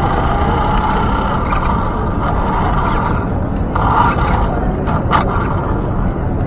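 RC monster truck driving over city pavement, heard from a camera mounted on it: a steady low rumble of tyres and drivetrain with a steady whine, and a few light knocks.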